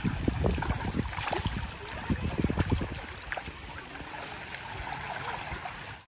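Shallow seawater lapping and splashing at the water's edge, with irregular small splashes from wading and a net being hauled through the shallows.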